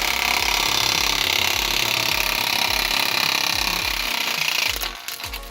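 Chainsaw running at full throttle as it cuts through wood, with a steady high buzzing that drops away about four and a half seconds in.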